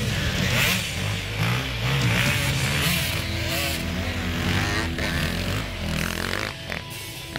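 Enduro motorcycle engines revving, their pitch rising and falling with the throttle, with a brief drop in loudness near the end.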